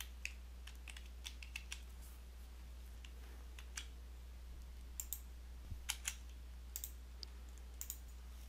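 Faint computer keyboard typing: scattered key clicks, a few at a time, over a low steady hum.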